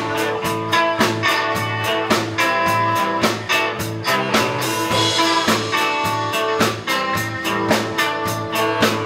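Live band playing a rock song on electric guitar, fiddle, upright bass and drum kit, with a steady drum beat.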